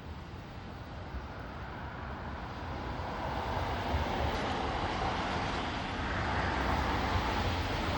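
Vehicle noise: a broad rushing sound that grows louder over the first three seconds, then holds steady.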